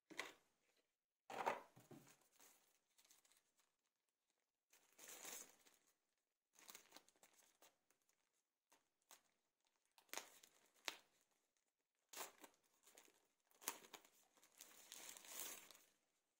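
Packaging crinkling and rustling as it is handled, in short bursts every second or two, with a few sharp clicks among them.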